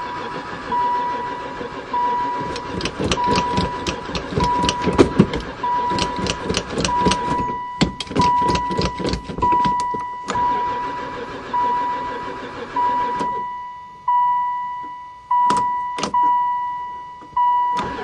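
An old van's starter cranking the engine over in long, rhythmic bursts without it ever catching, the engine having sat unused for years. The cranking stops about thirteen seconds in, and a couple of clicks follow near the end. A dashboard warning chime rings steadily about once every second.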